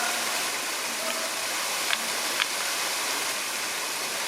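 Steady rush of falling water, likely a waterfall or water feature, with two short clicks about half a second apart near the middle.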